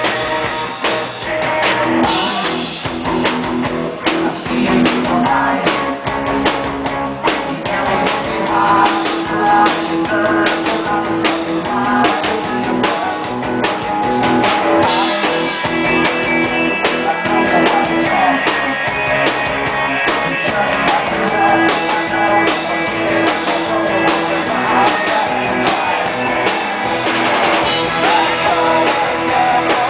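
Rock band playing live, with electric guitars, drum kit and a sung vocal, recorded from the crowd with a muffled, dull top end.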